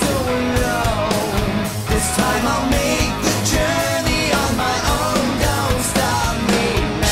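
Hard rock song: a sung vocal line over electric guitar, bass and drums.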